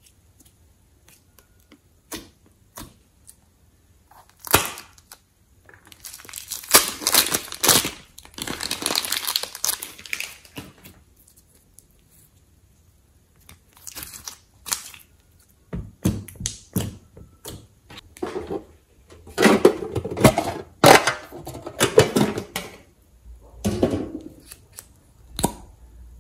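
Hands squeezing, kneading and stretching thick slime in a glass dish. The sticky slime gives off irregular runs of quick clicks and pops, with two longer, denser stretches.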